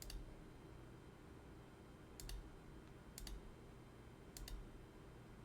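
Quiet computer mouse clicks: a click at the start, single clicks about two and three seconds in, and a quick double click about four and a half seconds in, over a faint steady low hum.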